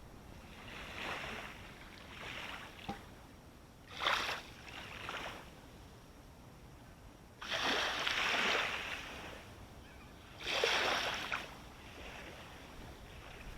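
Small sea waves breaking and washing close by on the shore. The surges come every few seconds, and the two loudest fall about halfway through and near the end.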